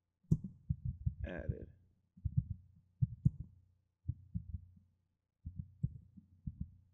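Computer keyboard being typed on in short bursts of keystrokes, heard as dull low thuds, with brief pauses between the bursts.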